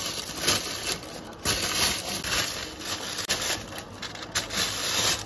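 Thin clear plastic carry bags crinkling and rustling in irregular bursts as plastic cups are slipped into them and the bags are handled.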